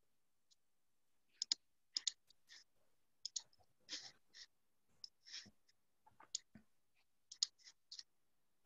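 Faint, irregular clicks and taps of a computer mouse and keyboard, several in quick pairs like double-clicks, with silence between.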